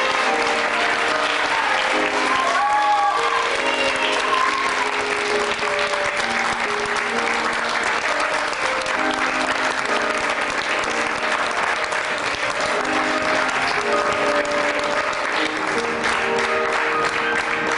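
Audience applauding steadily while orchestral music plays held notes underneath.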